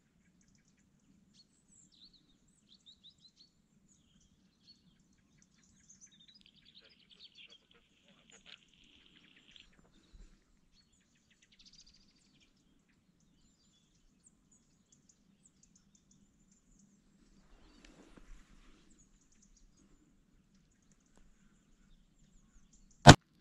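Faint bird chirps over a quiet hillside, then a single loud shotgun shot near the end, fired at a hare.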